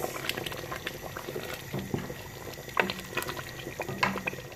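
Thick tomato stew bubbling and crackling in the pot while a wooden spoon stirs it, with scattered short clicks and a few louder knocks and scrapes of the spoon against the pot.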